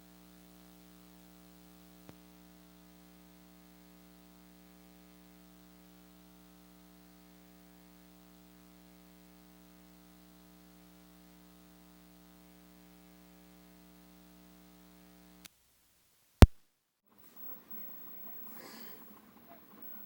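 A faint steady hum for about fifteen seconds that cuts off abruptly, followed by one sharp, loud click. After it, a man snoring with irregular snorts and breaths.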